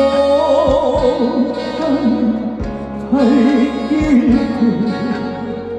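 A male trot singer holds long notes with heavy vibrato over a live band, with a kick drum thumping beneath.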